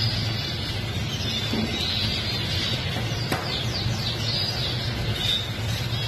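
Caged songbirds chirping and calling, with a quick run of falling notes about three and a half seconds in and a single sharp click just before, over a steady low hum.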